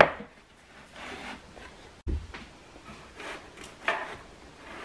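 Books being slid out of and pushed back into a row on a wooden bookshelf: short scrapes, rustles and taps of covers rubbing against each other and the shelf. There is a sharp tap at the start and a dull low thump about two seconds in.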